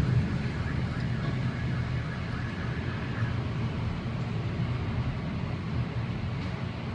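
Storm wind of a tornado blowing hard: a steady low rumble that rises and falls slightly.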